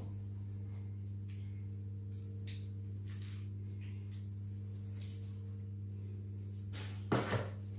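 A steady electrical hum with its overtones, under faint soft rustles of grated parmesan sprinkled by a gloved hand over pasta in a foil tray. About seven seconds in come a couple of sharp knocks, as the plastic cheese bowl is set down on the wooden board.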